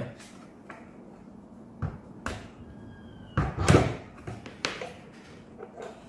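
Hard plastic clicks and knocks from a Deerma F600 humidifier being handled as its top unit is lifted off the water tank, the loudest cluster a little past the middle, with a brief faint squeak just before it.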